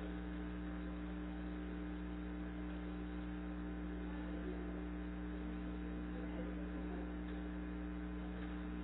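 Steady electrical mains hum over faint room noise.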